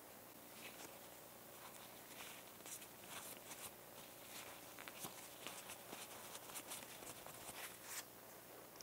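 Faint, irregular scratchy rubbing and rustling of cloth and a cotton swab wiping a small plastic model-car seat held in fabric gloves, in short strokes that stop about a second before the end.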